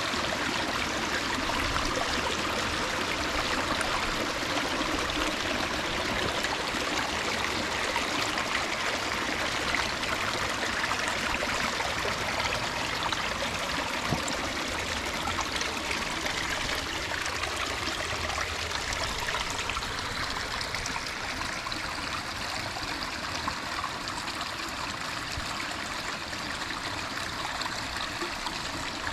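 Water running down a 14-foot pondless waterfall, a steady splashing, trickling rush that becomes a little softer about two-thirds of the way through.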